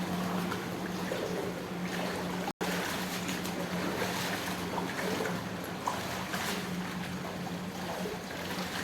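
Swimming-pool water splashing and trickling over a steady low hum, cutting out for an instant about two and a half seconds in.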